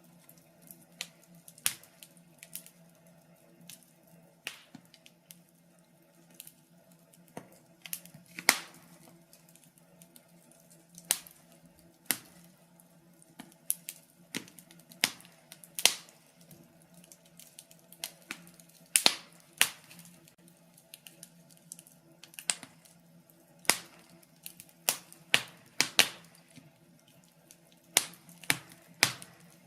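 Wood fire crackling: irregular sharp pops and snaps, sometimes single, sometimes in quick clusters, over a faint steady hum.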